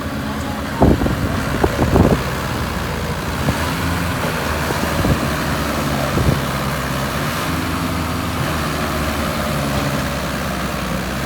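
Heavy vehicle engine running steadily at idle, with several sharp knocks in the first two seconds and two more around five and six seconds in.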